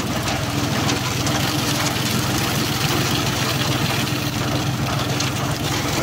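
Tractor engine running steadily at a constant speed, powering a transit concrete mixer.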